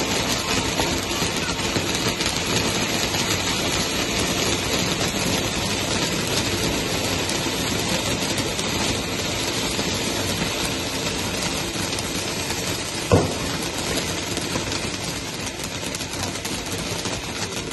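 Crackling Peacock ground firework fountain spraying sparks: a steady hiss thick with fast crackling. One louder pop stands out about thirteen seconds in.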